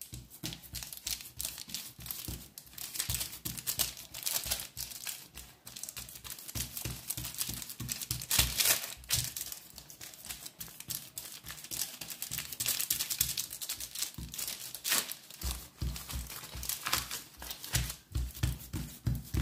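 Baking paper crinkling and rustling under the hands as cocoa biscuit dough is pressed and spread flat on it by hand, with soft pats of the palms, busiest in the second half.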